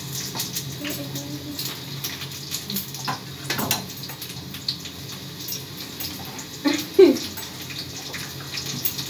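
Water running from a tap with small clinks, as when washing something at a kitchen sink. A short sliding cry cuts in about three and a half seconds in, and a louder one about seven seconds in.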